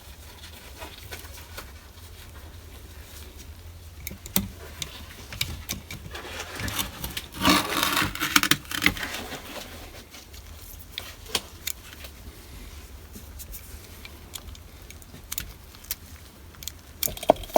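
Scattered small clicks, taps and rattles of hand tools working at the Prius's hatch button housing. About seven to nine seconds in there is a louder stretch of scraping and rubbing.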